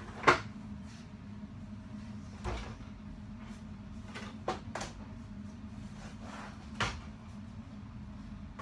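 A few sharp knocks and clacks of hard objects being handled on a desk, the loudest right at the start and the others spaced a couple of seconds apart, over a steady low hum.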